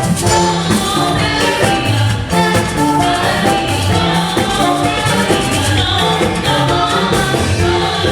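Live church music: a band with horns plays a steady beat while voices sing.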